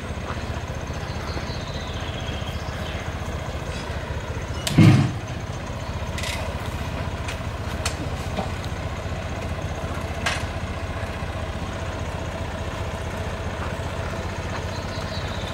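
Small farm tractor's engine running steadily, with one heavy thud about five seconds in and a few sharp clicks later.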